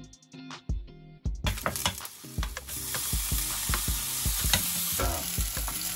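Background music with a steady beat, then, about a second and a half in, bacon and sliced leek start sizzling in hot oil in a frying pan, with the clicks and scrapes of a wooden spatula stirring them.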